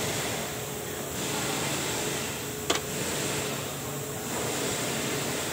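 A single sharp click of pliers working a fuel hose fitting, about two and a half seconds in, over a steady mechanical hum and hiss.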